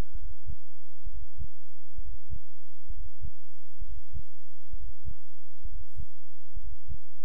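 A low, heartbeat-like pulse: pairs of short deep thumps about once a second, over a steady low hum.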